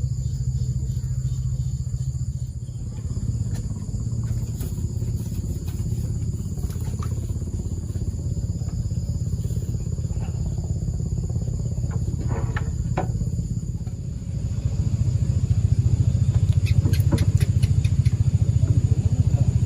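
A small engine running steadily with an even low drone, getting louder about two-thirds of the way through, with a few light knocks.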